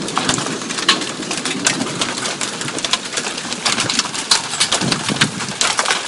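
Mothball-sized hailstones pelting down hard: a dense, irregular patter of sharp ticks over a steady hiss.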